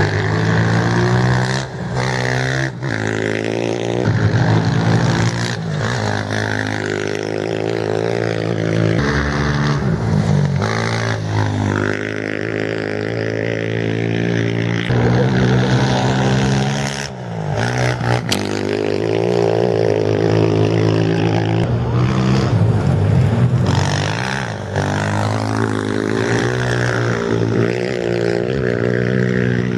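Off-road race motorcycles revving and passing one after another, their engine pitch rising and falling as each goes by.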